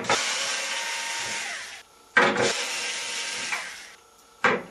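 Cordless screwdriver backing out a dryer drum baffle's holding screws, in short runs that each start sharply and trail off, about three in all.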